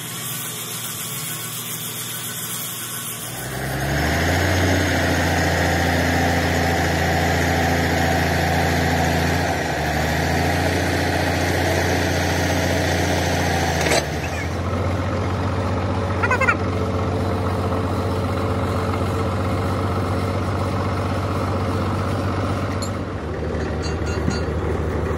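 Large diesel engine idling steadily, coming in about three seconds in and holding an even low hum; its tone shifts abruptly about halfway through.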